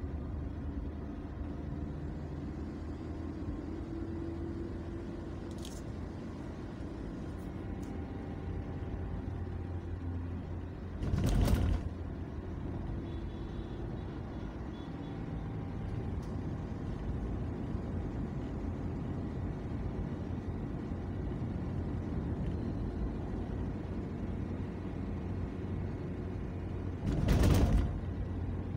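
Steady low drone of a car's engine and tyre noise heard from inside the moving car. Two short, louder bursts of noise come through, about eleven seconds in and again near the end.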